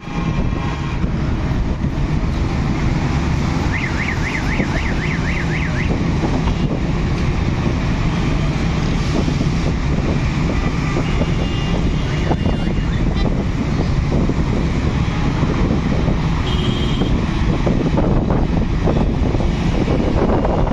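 Steady road traffic noise from a busy junction, a constant low rumble of engines and tyres. About four seconds in, a rapid warbling electronic siren-like tone, about four wobbles a second, lasts about two seconds. A few brief high horn tones come later.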